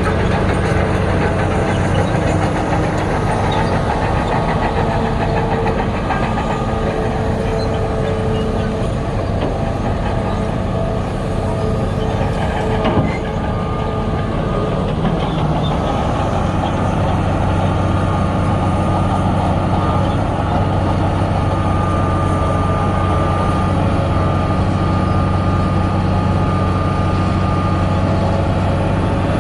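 Heavy diesel earthmoving machinery, a bulldozer or dump truck, running steadily under work, with a single short knock about halfway through.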